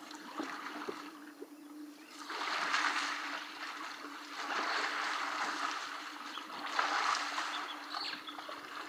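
Muddy river water sloshing and splashing as African elephant calves wallow and roll in it, swelling up three times.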